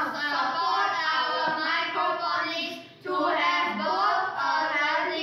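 Boys singing together, in two phrases with a short break about three seconds in.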